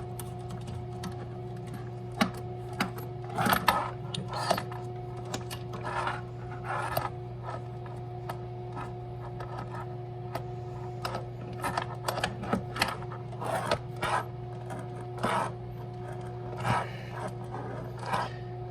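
Irregular clicks, taps and scrapes of hands threading the bidet's water hose nut onto a plumbing T-adapter, over a steady hum.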